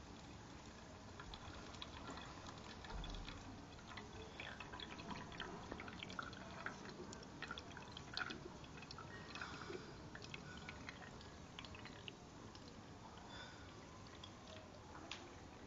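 Faint water dripping and trickling: many small, irregular drips that come thickest in the middle of the stretch and thin out towards the end.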